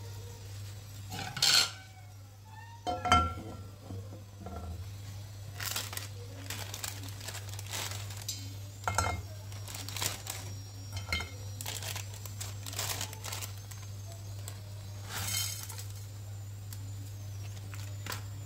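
Kitchen clatter as a nonstick frying pan is set on a gas stove's metal burner grate and a dry instant-noodle block is put in and broken apart: a series of knocks and clinks, the two loudest within the first few seconds, then lighter scattered clicks and crunches.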